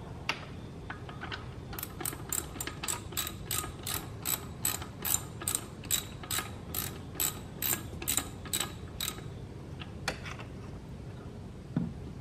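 Hand ratchet wrench clicking in steady strokes, about three clicks a second for some seven seconds, as a bolt on an alternator mounting bracket is turned, with a few single clicks before and after the run.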